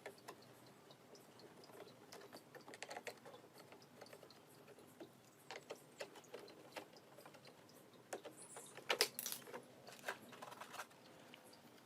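Faint, irregular light clicks and rattles of small parts being handled during repair work, with a denser cluster of clicks about nine seconds in.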